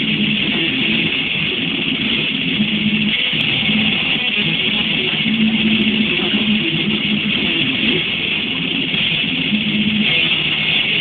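Instrumental passage of technical death metal, led by electric guitars and bass, dense and steady throughout.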